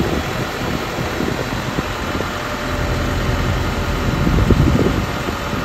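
Vehicle engines idling in stopped street traffic, from the flatbed tow truck and the queue of cars held up behind it. A low rumble swells briefly about four seconds in.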